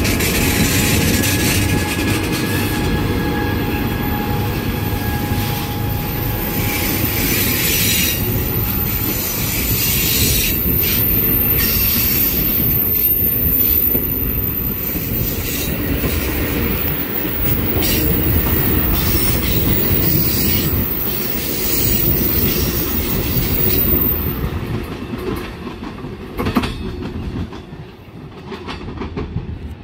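Amtrak passenger train led by Siemens Charger ALC-42 diesel locomotives rolling past and away, its bilevel Superliner cars rumbling by with repeated wheel clicks over rail joints. A steady whine in the first few seconds fades out. The sound falls away over the last few seconds as the train leaves.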